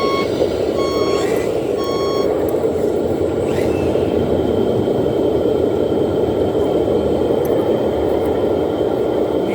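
Reversing beeper on a radio-controlled model truck, about one beep a second, stopping about two seconds in, over a loud steady mechanical rumble.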